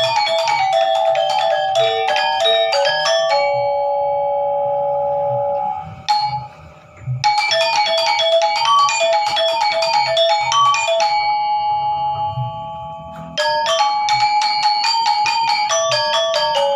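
Gamelan-style music of struck, ringing metal keys playing fast runs of notes over a low pulsing beat. The runs pause on long held notes twice, once with a brief near-silent break about six seconds in, and the full ensemble comes back in loudly near the end.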